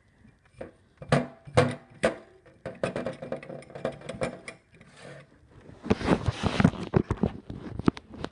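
A run of sharp knocks, clicks and clatters, with a short rushing noise about six seconds in.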